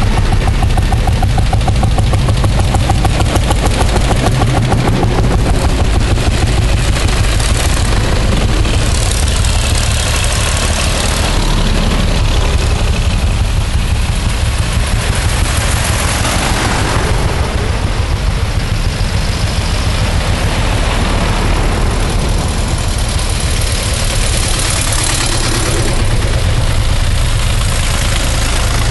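A line of vintage farm tractors driving past one after another, their engines running steadily, the sound swelling as each one passes close.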